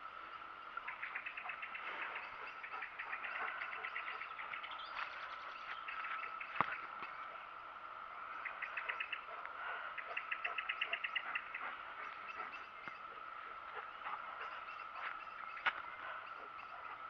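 Outdoor chorus of animal calls: a steady high trill with bursts of rapid pulsed trilling over it, about ten pulses a second, and two sharp clicks.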